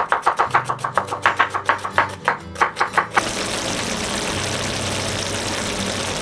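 A knife chopping quickly on a cutting board, about six strokes a second. About three seconds in, the chopping stops and a steady sizzle of food frying in a hot pan takes over.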